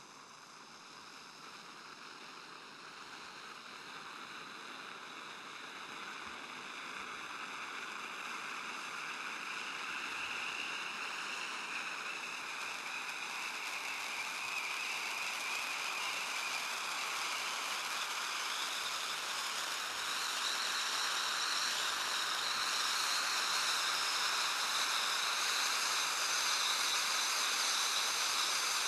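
SkyLine SL08 Titanium Volcano ground fountain firework burning with a steady rushing hiss of titanium sparks, growing gradually louder as the spray builds.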